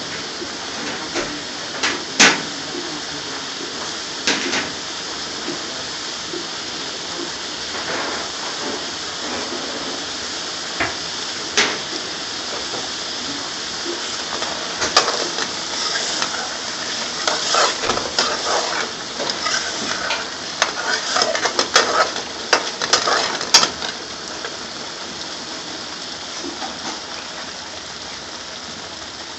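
Tikka masala sauce simmering and bubbling in a metal pan with a steady sizzle. A steel ladle stirs it and clinks against the pan, the clinks coming thick and fast from about halfway through.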